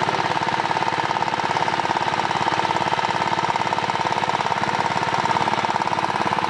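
Small engine of a water pump running steadily, with a fast, even knocking beat.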